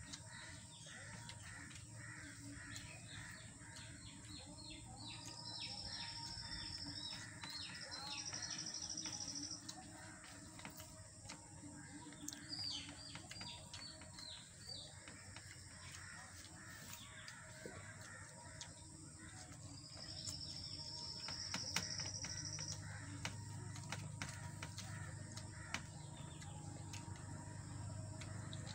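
Birds calling, with clusters of short repeated high calls and a few longer, steady high trills, over faint clicks and mouth sounds of someone eating rice by hand.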